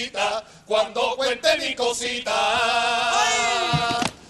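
Men of a carnival cuarteto singing a quick, chant-like line of lyrics, then holding one long note for about two seconds before it cuts off sharply.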